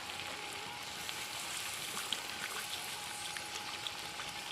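Prawn and young-jackfruit curry sizzling and bubbling in the pan as it simmers, with a steady hiss and many small scattered crackles, a little water having just been added to the fried masala.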